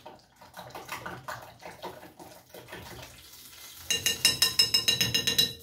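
Eggs and blended tomatoes being beaten in a glass bowl with a utensil, clinking and scraping against the glass. About four seconds in the strokes turn into a fast, even clinking, around nine a second, with the bowl ringing.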